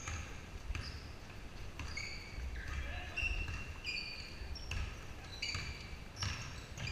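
A basketball bouncing and many quick, high-pitched sneaker squeaks on a hardwood gym court during play, with sharp knocks scattered throughout, in a large, echoing gym.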